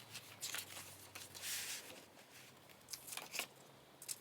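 Pages of an album photobook being turned and handled: a few soft paper rustles and slides.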